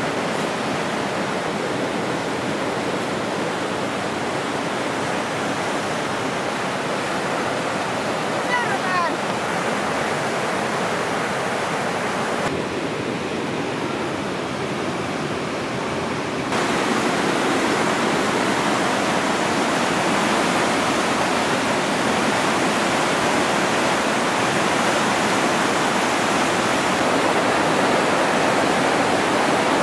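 Steady rushing of the Kiutaköngäs rapids on the Oulanka river: fast water pouring over rock in a dense, even hiss. It turns duller and a little quieter for a few seconds near the middle, then comes back slightly louder.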